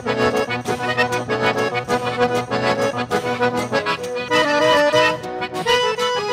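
Accordion playing an instrumental solo over the band, with a steady drum beat behind it.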